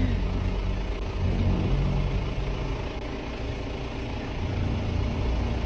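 Vehicle engine running at idle, a steady low hum.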